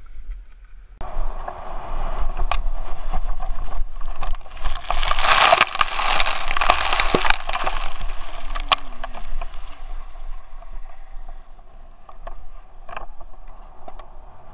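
Skis scraping and skidding hard over snow during a fall, a rough hiss that builds about a second in and is loudest in the middle before dying away, with scattered knocks as the skier tumbles. A low rumble of wind on the camera's microphone runs underneath.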